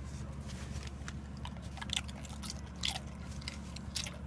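Chewing with a few sharp crunches and clicks, the loudest about two and three seconds in, over a steady low hum.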